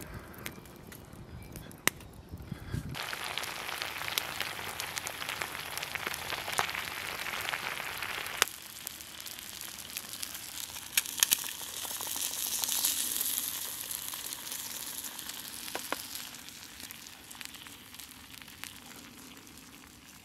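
Eggs, sausage and laverbread sizzling in a frying pan over a small wood-burning stove, the sizzle rising about three seconds in, with a few sharp pops from the wood fire.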